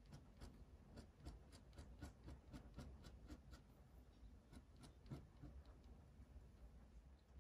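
Stainless steel Kakimori dip nib scratching short strokes on cold-pressed watercolour paper: a quick, irregular run of faint ticks as cross-hatched lines are drawn.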